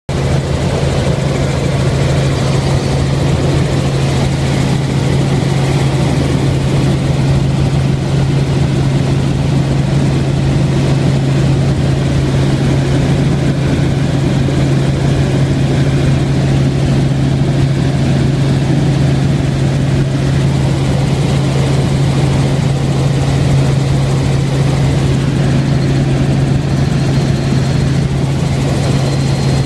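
Helicopter in flight heard from inside the cabin: the rotor and engine make a loud, steady low drone with a strong constant hum.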